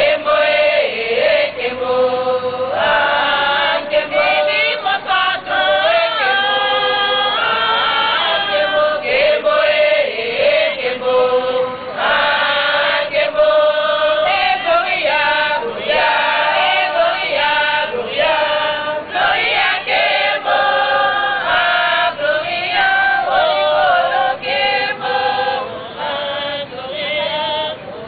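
A group of women singing a gospel song together.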